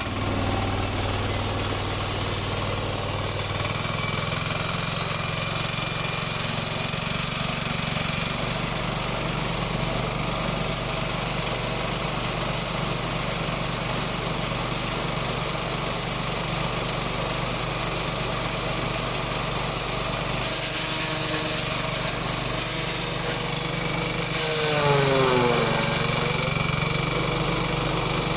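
A motor-driven farm processing machine running steadily, a constant mechanical hum. About 25 seconds in it briefly gets louder, with a whine that falls in pitch.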